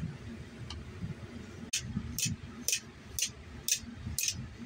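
Blacksmith's hammer striking hot steel key stock on an anvil, curling the end into a hook. A light tap comes about 0.7 s in, then from about 1.7 s a steady run of six blows, roughly two a second.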